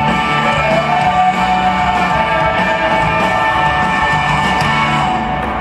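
Live rock band playing loud, with electric guitars holding steady ringing chords.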